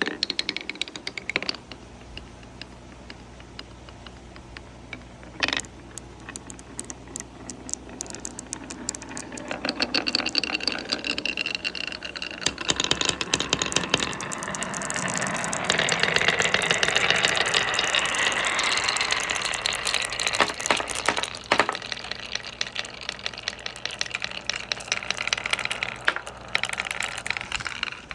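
Marbles rolling and clattering down a wooden wave-shaped marble run track. Scattered clicks and a sharp knock give way to a dense, continuous rattle as many marbles roll at once, loudest in the middle, then thinning back to separate clicks near the end.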